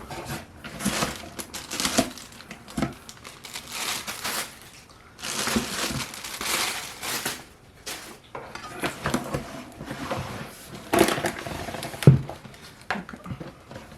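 Packaging being opened and handled: irregular crinkling and rustling of packing material, with a few sharp knocks, the loudest about twelve seconds in.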